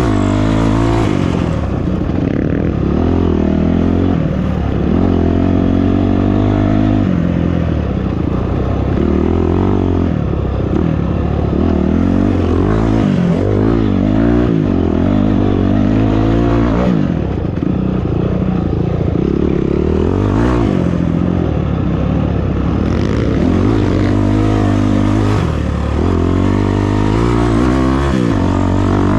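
Off-road vehicle's engine running under load, its pitch rising and falling over and over as the throttle is worked, with some clatter.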